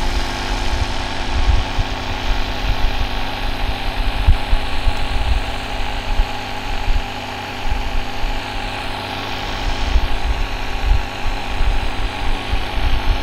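A steady mechanical hum like an engine idling, with an uneven low rumble underneath.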